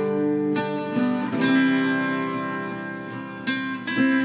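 Instrumental passage of a song: acoustic guitar chords struck about once a second, with long held notes ringing above them.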